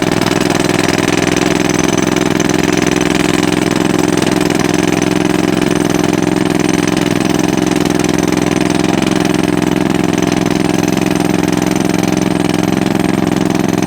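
An engine running steadily at a constant speed, with no revving or change.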